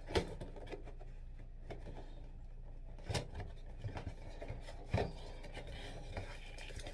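Product packaging being handled and opened: rubbing and scraping, with three sharp knocks spaced a couple of seconds apart.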